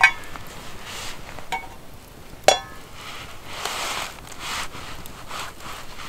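Steel frying pan set onto a metal pot stand over a wood fire: a sharp ringing clink of metal on metal right at the start, a lighter one about a second and a half in, and another ringing clink about two and a half seconds in. A low crackle and hiss of the fire lies underneath.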